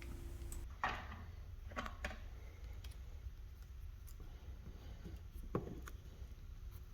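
A few faint, scattered clicks and taps from a transformer plug being pushed into a wall outlet and a hook-and-loop strap being fastened around it, over a low steady hum.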